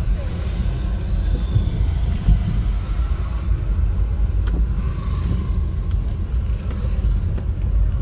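Steady low rumble of a moving vehicle on an unpaved dirt road, amid motorcycle and car traffic, with faint engine notes from the nearby motorcycles.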